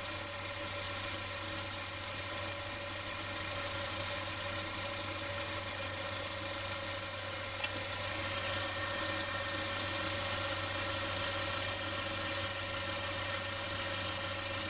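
Mercedes-Benz M270 four-cylinder turbo petrol engine idling from a cold start, with a fast, steady, high-pitched 'chi-chi-chi-chi' ticking over the engine note. The owner counts it as an abnormal noise on cold start; the treble is boosted in the recording.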